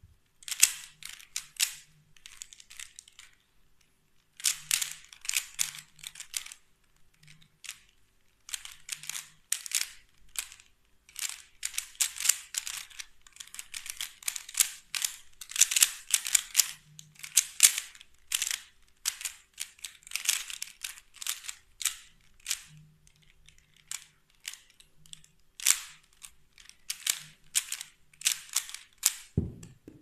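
MoYu AoLong v2 3x3 speedcube turned rapidly during a timed solve: bursts of quick plastic clicks and clacks from the layer turns, broken by short pauses. A low thump near the end as the solve finishes.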